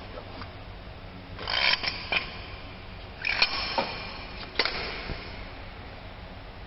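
Metal clanks and rattles in three short bursts as steel fittings and a hydraulic ram are handled and set in place on a frame-straightening bench, over a steady low workshop hum.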